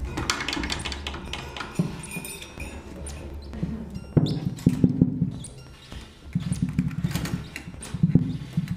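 Free improvisation on drums and a Singer sewing machine played as an instrument. Scattered drum and cymbal strikes ring out near the start, followed by several short runs of rapid mechanical knocking from the machine stitching, punctuated by sharp hits.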